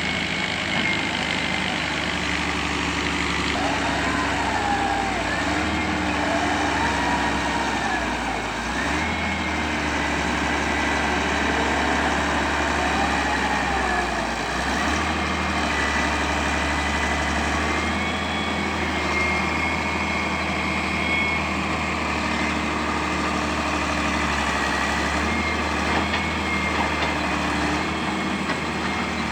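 Excavator's diesel engine running steadily while working, with a higher whine that rises and falls several times as it works.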